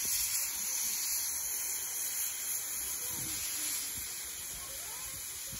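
Steady hiss of steam blowing from the open cylinder drain cocks of the JNR Class C62 steam locomotive C62 2, easing slightly toward the end.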